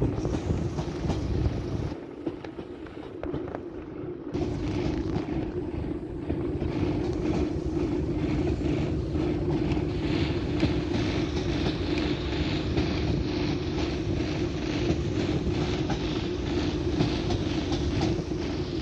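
Train carriage running along the line: a steady rumble and hum with the rhythmic clickety-clack of the wheels over rail joints, briefly quieter and duller about two seconds in.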